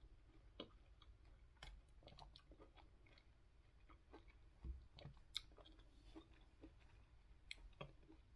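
Faint chewing of soft mango and pineapple chunks, with scattered small clicks as a fork is worked in a plastic container.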